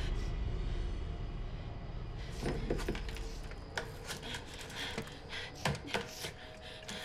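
Horror film sound effects: a low rumble that fades out over the first few seconds, then scattered sharp knocks, clicks and clatters.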